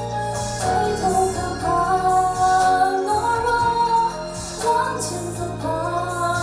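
A woman singing a pop ballad into a handheld microphone over instrumental accompaniment, drawing out several long held notes.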